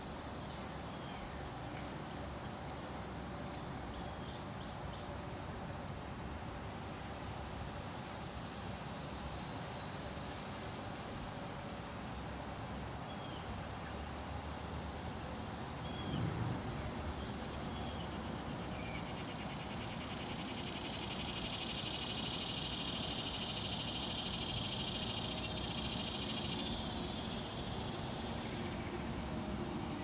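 Outdoor riverside ambience: short bird chirps scattered over a steady low background noise. There is a brief thump about halfway through. From about two-thirds of the way in, a loud high-pitched hiss swells up, becoming the loudest sound, then cuts off shortly before the end.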